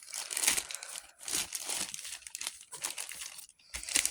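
Packaging being unwrapped by hand, with irregular crinkling and tearing and a short pause a little before the end.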